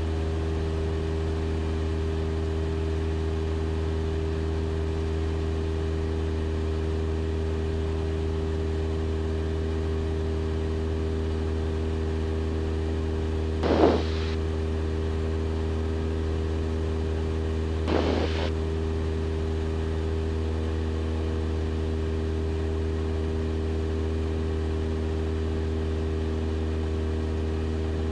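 Cessna 172 Skyhawk's piston engine and propeller droning steadily in cruise, heard from inside the cabin. Two short bursts of noise about 14 and 18 seconds in briefly rise above the drone.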